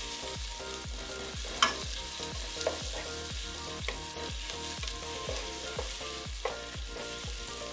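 Sliced red onions sizzling in hot cooking oil in a non-stick pot while being stirred with a wooden spoon, with a few sharp knocks, the loudest about one and a half seconds in. The onions are at the softening stage of being fried until golden brown.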